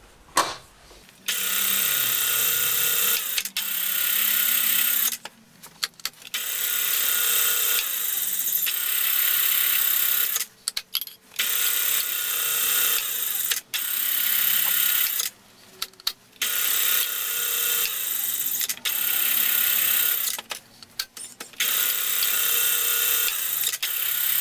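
Vertical milling machine spindle power-tapping holes in an aluminium hub. The machine runs in short spells of about two seconds, starting and stopping about eight times, with brief pauses between.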